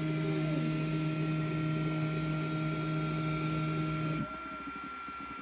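FlashForge Adventurer 5M 3D printer running with a steady hum that cuts off suddenly about four seconds in, leaving a fainter high whine.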